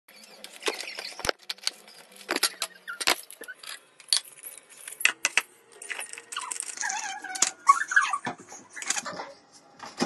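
Crinkly plastic snack wrappers rustling and crackling in irregular bursts as biscuit packets are cut open with scissors and emptied into a mixing bowl, with a few short squeaky tones about seven to eight seconds in.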